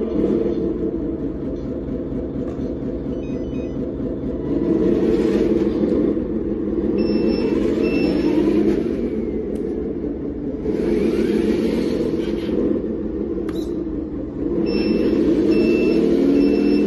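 Simulated diesel truck engine from the sound module of a Lesu 6x6 RC dump truck, running steadily and swelling three times as the truck is driven, with whirring from the drive. During two of the swells a short high beep repeats a few times.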